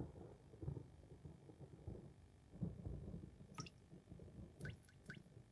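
The first raindrops of a shower falling: a faint, uneven low rumble of thunder dying away, then a few light plinking drips, the first about three and a half seconds in and three more near the end.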